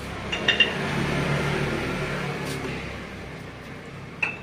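Light metallic clinks, each ringing briefly: two close together about half a second in and another near the end, over a rushing noise that swells and fades in the first few seconds.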